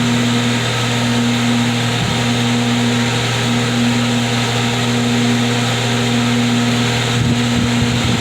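Car crusher's engine and hydraulic power unit running steadily, a constant low hum, while the crusher is worked by remote control.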